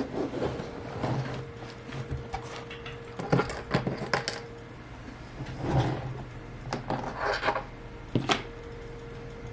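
Scattered clicks and knocks as tools and objects are handled and set down on a work surface, over a low steady hum.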